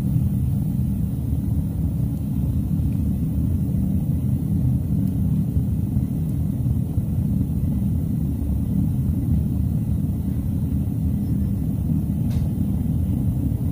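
Propane burner of a stainless-steel melting furnace burning steadily, a constant low rumble.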